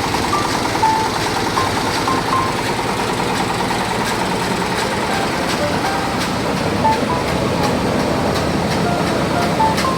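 Meatball grinding machine running steadily, a constant loud mechanical noise. Short pitched notes step up and down over it like a tune.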